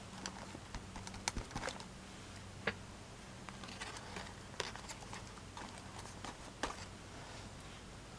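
Light, irregular clicks and taps of hands working with paper pieces and a glue stick on a craft table, over a steady low hum.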